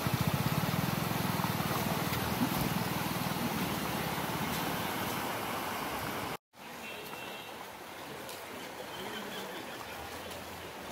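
Steady rush of fast-flowing floodwater. A motorcycle engine runs and fades away over the first few seconds. About six seconds in, the sound drops out for a moment and comes back as a quieter water rush.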